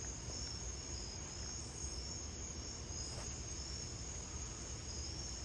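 Crickets chirping steadily in a continuous high trill.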